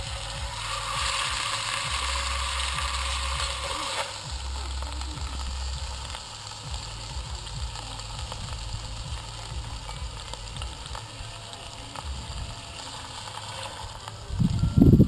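Pork roast searing in hot oil in a cast-iron Dutch oven: a steady sizzle, louder for about three seconds near the start, then settling. A brief loud low rumble near the end.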